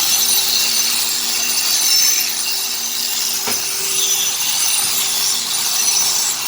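A power tool running steadily: a continuous high hiss over a faint steady hum, with one sharp click about halfway through.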